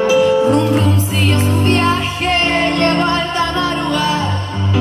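Live pop band playing with a woman singing; a deep bass line comes in about half a second in.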